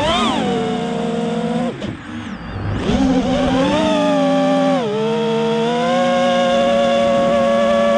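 Quadcopter motors and propellers whining. The pitch drops and the sound fades as the throttle is cut about two seconds in, rises again about a second later, dips once more near the five-second mark and then holds steady.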